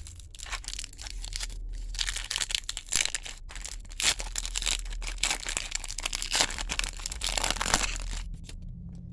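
A trading-card pack wrapper being torn open and crinkled in the hands: dense crackling with sharp tearing sounds, loudest about four seconds in and again near the end.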